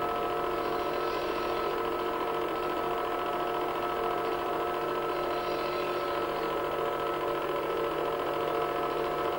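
Home-movie film projector running: a steady mechanical whir with a hum of several steady tones.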